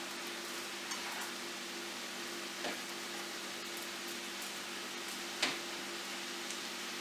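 Chopped vegetables sizzling in a frying pan on a gas burner while being stirred, with a steady hiss and a faint hum underneath. The utensil knocks against the pan three times, the sharpest about five and a half seconds in.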